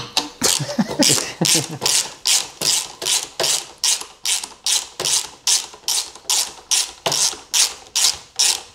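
Hand ratchet wrench worked back and forth, a rapid run of short ratcheting rasps at about three strokes a second that stops near the end.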